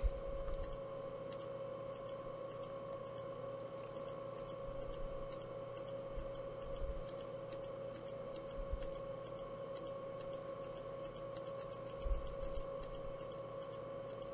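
Computer mouse button clicking repeatedly, often in quick press-and-release pairs, about two to three clicks a second, each click entering a probe measurement into the software. A steady faint hum runs underneath.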